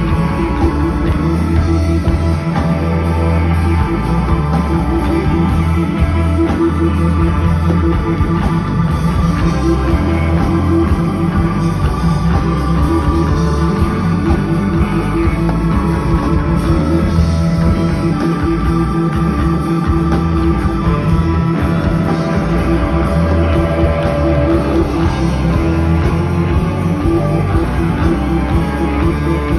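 Live blues-rock band playing loudly and without a break: electric guitar over keyboards and drums.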